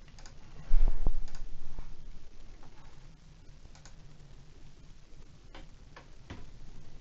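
Computer mouse clicking, with its scroll wheel ticking in short runs, over a faint steady hum. About a second in, a dull low thump is the loudest sound.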